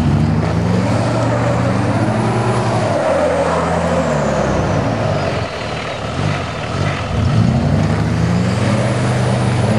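Dodge Ram pickup's diesel engine revving up and down under load in deep mud, with the tyres churning. The engine pitch rises and falls several times, drops low about halfway through, and climbs again near the end.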